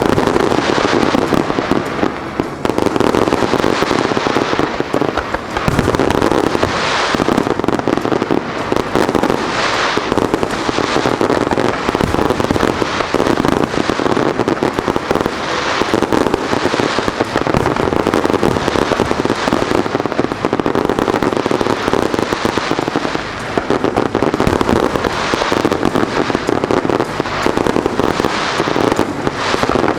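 A dense, continuous barrage of aerial firework bursts and crackling from a starmine display, with heavier swells of bursts recurring every few seconds.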